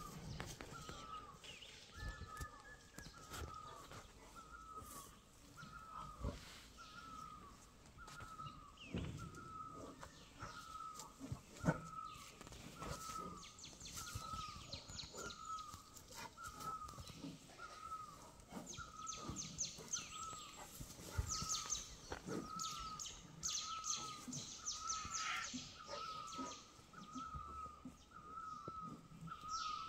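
A bird repeats the same short chirp about every three-quarters of a second, with scattered soft knocks and rustles in between.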